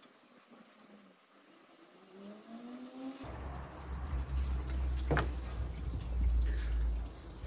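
Coolant running out of the Toyota Hilux radiator's opened drain plug and splashing into a container. A steady low rumble starts suddenly about three seconds in, with a single sharp click a couple of seconds later.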